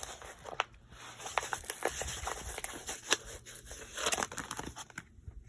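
Plastic packaging of a diamond painting kit crinkling and rustling as it is handled and unpacked, with scattered light clicks and taps.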